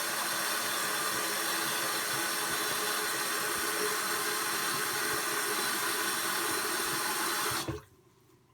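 Bathroom sink tap running in a steady stream, shut off abruptly near the end.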